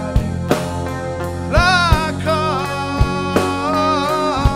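Rock band playing live: electric guitar over a drum kit and bass, with a melody line that bends in pitch partway through.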